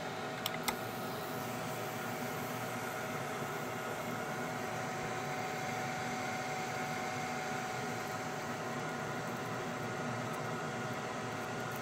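Fume extraction fan running steadily with a faint whine, drawing off smoke while a laser cuts slots in Kydex; two faint ticks near the start.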